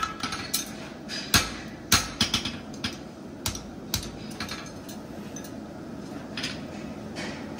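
Hammer blows on a hot steel horseshoe on the anvil during hand-forging: quick, irregular strikes, the hardest about one and a half and two seconds in, thinning out after about four seconds. Under them is the steady noise of the gas forge running.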